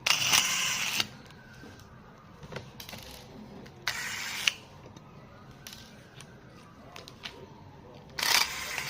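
Hands handling laptop hardware: small clicks and taps of plastic and metal parts, with three short scraping sounds, the first and loudest right at the start, another about four seconds in and one near the end.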